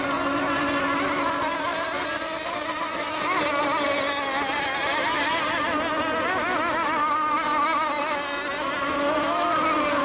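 Several radio-controlled racing boats' small engines running at high revs together, their overlapping pitches wavering up and down as the boats circle the course.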